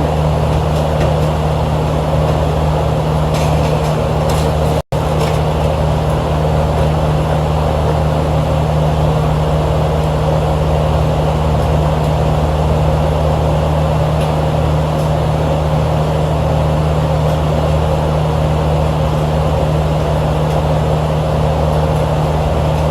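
Steady machinery hum of rooftop HVAC equipment running, with a constant low drone and fan noise. The sound cuts out for an instant about five seconds in.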